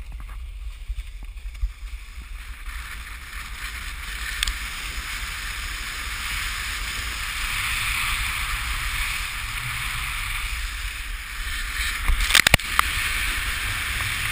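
Steady rush of wind on a moving camera's microphone with the hiss of sliding over snow, growing louder over the first several seconds. A few sharp knocks come in quick succession near the end.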